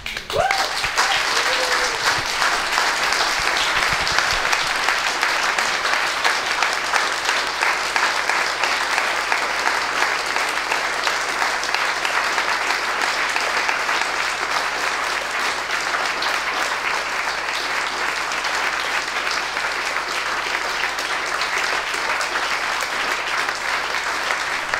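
Small audience applauding: dense, steady clapping that starts abruptly and holds at an even level.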